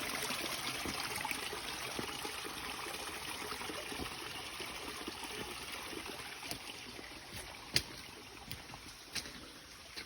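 Small stream trickling and running, growing gradually fainter. Several short sharp clicks in the second half, the loudest about three-quarters of the way through.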